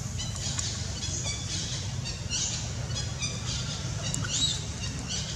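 High-pitched chirping and squeaking calls in quick series, several a second, with one rising-and-falling squeal about four seconds in, over a steady low rumble.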